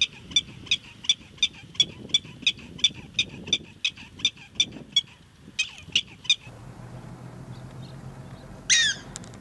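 Prairie dog alarm call: a rapid series of short, high, bird-like chirps, about three a second, a sign that a predator has been spotted. After a pause, a louder call falls in pitch near the end.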